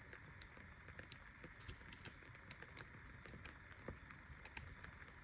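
Near silence with faint, scattered light ticks: the pages of a small tarot guidebook being leafed through.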